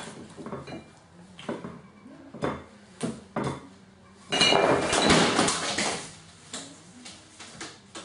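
Herring gull's beak pecking at a ceramic plate on a worktop, a series of sharp clinks. About four seconds in comes a loud burst of wing flapping and clatter as the gull leaves the counter for the floor.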